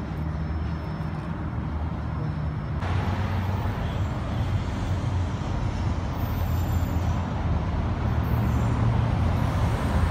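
Road traffic: cars and trucks running close by with a steady low engine rumble. About three seconds in the sound changes abruptly to a brighter traffic hiss, and the rumble grows slowly louder toward the end.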